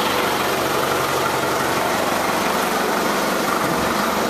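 Diesel engine of a truck tractor unit idling steadily with a low, even hum.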